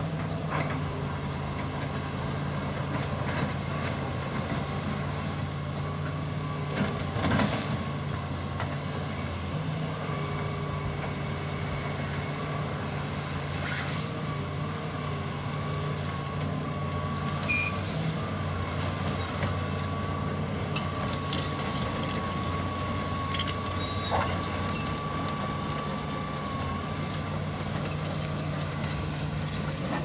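Fiat Kobelco EX355 crawler excavator working: its diesel engine runs at a steady note with a steady whine above it, while the bucket digs gravel, giving a few sharp knocks, the loudest about seven seconds in.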